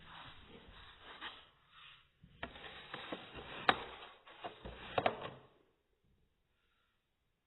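Handling noise: objects rubbing and scraping, with several sharp clicks, stopping about five and a half seconds in.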